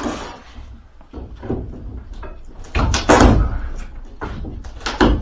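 Wooden shipping-crate boards being knocked and pried loose from their nails: a series of hard wooden bangs and thuds, the loudest cluster about three seconds in and another near the end.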